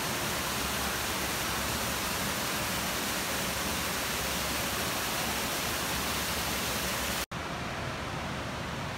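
Artificial waterfall splashing into an exhibit pool: a steady rush of falling water. It cuts off abruptly about seven seconds in and is replaced by a duller steady hiss.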